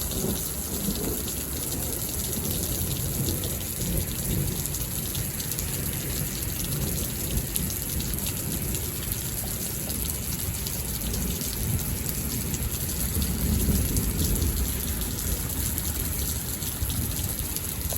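Steady rain hissing, with low rolling thunder rumbling beneath it and swelling about two-thirds of the way through. The thunder comes from cloud-to-cloud and intra-cloud lightning, so it rolls without a clear direction.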